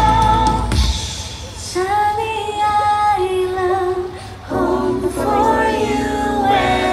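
A woman singing long held notes, amplified over a stadium sound system, with short breaks about a second in and again past the middle.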